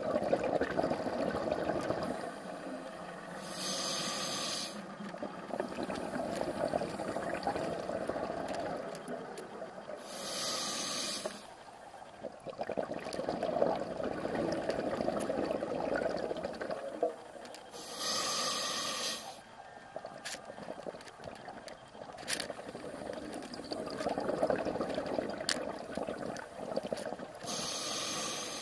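Scuba diver breathing through a regulator: four slow inhalations, each a short hissing rush, with long stretches of bubbling exhaust bubbles between them.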